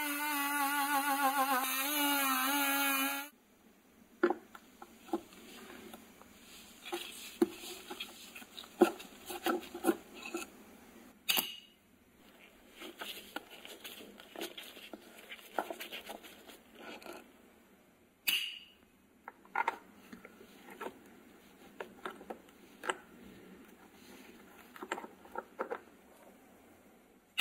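A short violin phrase that cuts off about three seconds in, followed by faint clicks and scrapes of steel hand tools on a ratchet wrench as it is taken apart, with two sharper metallic clinks.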